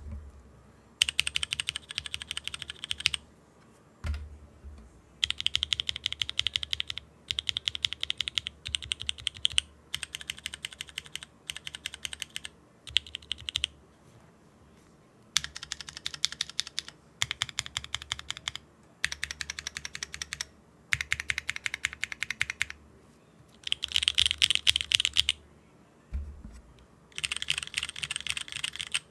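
Typing on Neo65 mechanical keyboards with DCS keycaps, comparing prototype HMX Light Tactile switches against Cherry MX Brown switches. The typing comes as about a dozen quick bursts of key presses, each a second or two long, with short pauses between and a single low thump twice.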